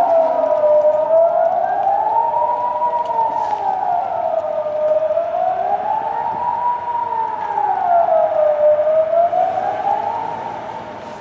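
Swiss civil defence siren heard from afar, sounding the general-alarm test wail: a single tone rising and falling smoothly about every four seconds. It fades away near the end as the siren winds down.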